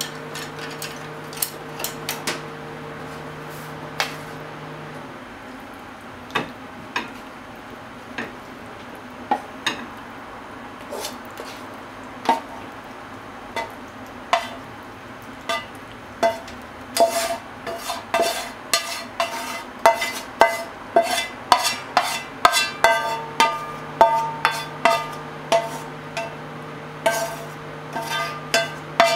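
A metal utensil scraping and knocking against a frying pan as stir-fried eggplant and minced meat is pushed out into a ceramic bowl: sharp clinks with a short ring after each, scattered at first, then coming several a second through the second half. A low steady hum sits underneath, dropping out about five seconds in and coming back about three-quarters of the way through.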